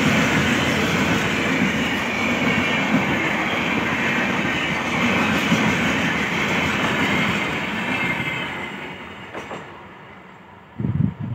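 LHB passenger coaches passing at speed: a steady rush of steel wheels on rail with clickety-clack, fading away from about eight seconds in as the last coach goes by. A short, loud low burst near the end.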